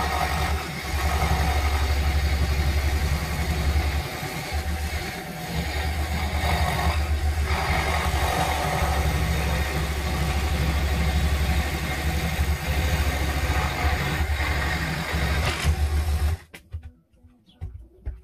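Woodstar SD16 scroll saw running steadily, its blade cutting through a wooden board. It is switched off about sixteen seconds in, followed by a few light knocks of the wood being handled.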